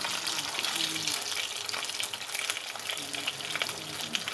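Tilapia shallow-frying in hot soybean oil in a pan: a steady sizzle full of small crackling pops.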